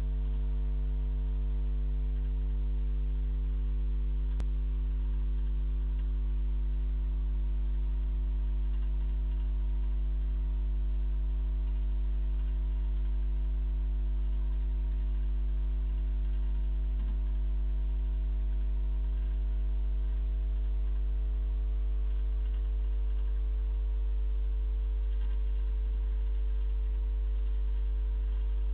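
Steady electrical mains hum made of several fixed tones, with a single faint click about four seconds in.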